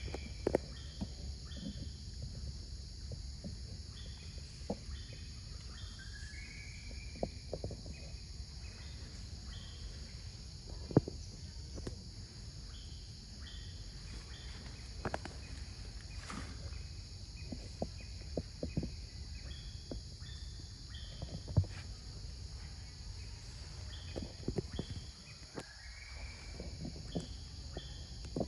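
Tropical forest ambience: a steady high insect drone with short bird chirps now and then, and scattered sharp clicks and snaps.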